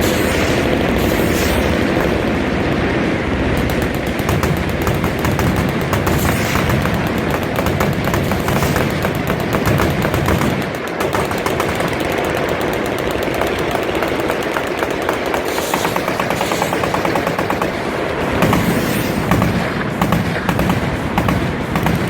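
Many machine guns firing at once on a firing line, a dense and nearly unbroken rattle of automatic fire with a brief lull about ten seconds in.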